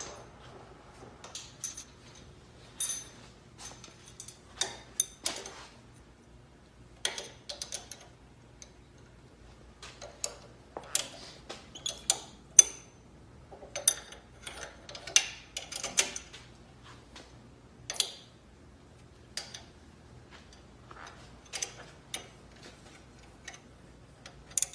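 Irregular light metallic clicks and clinks, a few at a time, as a monkey handles fittings, lines and parts on a car engine.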